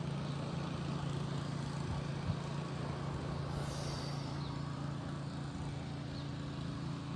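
Ocean surf washing steadily, with a low steady hum beneath it.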